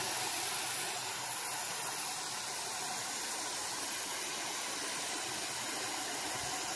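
Garden hose spray nozzle on its mist setting, spraying fine water onto a painted car panel: a steady hiss.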